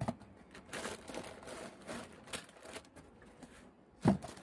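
Plastic packaging bag crinkling and rustling as it is handled, with light taps and clicks, and one louder knock near the end.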